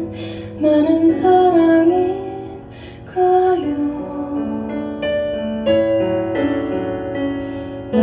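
A woman singing a slow ballad phrase over a Kurzweil SP2X digital stage piano; about halfway through her voice stops and the piano carries on alone with held chords.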